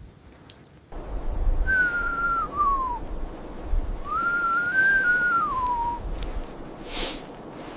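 Blizzard wind with a steady low rush. It whistles twice in a thin tone that drops in pitch at the end of each whistle, and there is a short hissing gust near the end.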